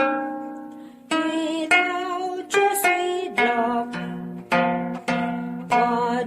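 Gayageum (Korean plucked zither) playing an instrumental melody of single plucked notes, each dying away, with some notes bent and wavered in pitch by pressing the string.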